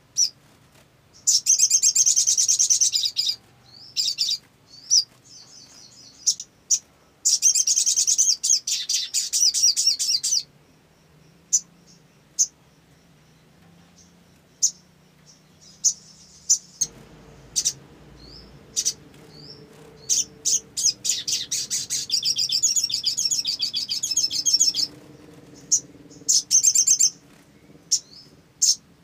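Olive-backed sunbird singing: three high, fast trilling phrases of two to three seconds each, with short sharp chips in between.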